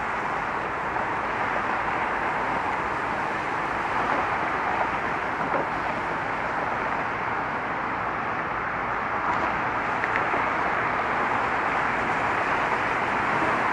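Steady roar of road traffic, many cars passing continuously with no single vehicle standing out.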